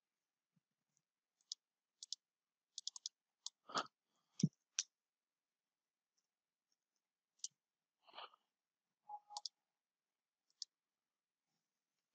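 Faint, scattered clicks of computer keyboard keys and a mouse, some in quick runs of two to four, with gaps between.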